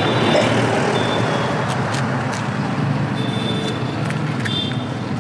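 Street traffic going past: a steady wash of engine and tyre noise from passing vehicles.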